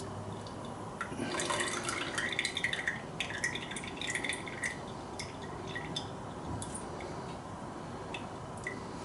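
Homemade syrup poured into a glass jar: a gurgling pour starting about a second in and lasting a few seconds, then scattered drips and small clicks.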